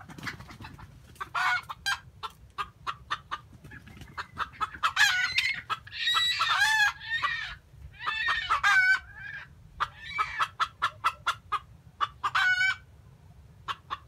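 Decoy rooster clucking in quick runs and crowing several times in short, broken, stuttering phrases, the longest crow near the middle.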